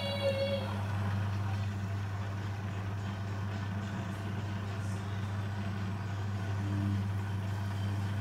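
Beko washing machine running on a spin with a steady low drone, the noise the owner takes for a failing rubber seal behind the drum. A brief higher-pitched sound at the very start.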